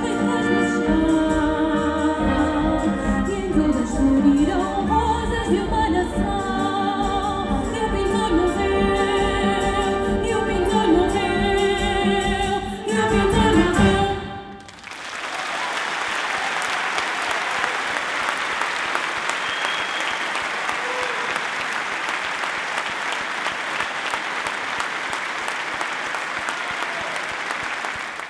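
A solo singer with a mixed chamber ensemble of winds, strings, double basses and timpani, the voice wavering with vibrato, swelling to a final chord about halfway through. An audience then applauds steadily until the sound cuts off abruptly.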